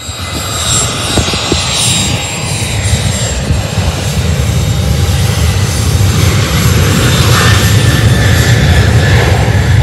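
Jet engine noise: a high whine falling in pitch over the first few seconds as a business jet taxis close by, under a loud low rumble that builds as a Southwest Boeing 737-700 spools up for its takeoff.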